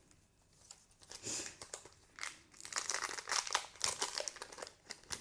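Crinkling of a foil Pokémon booster-pack wrapper being handled, with dense crackly rustles starting about a second in.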